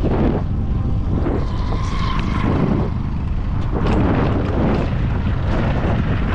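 A motorcycle engine running while riding, heard from the rider's seat, with heavy wind buffeting on the microphone.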